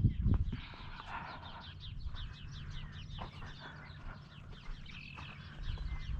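Small birds chirping in a rapid series of short, high, downward-sliding notes, thickest in the first half, over a steady low rumble of wind on the microphone.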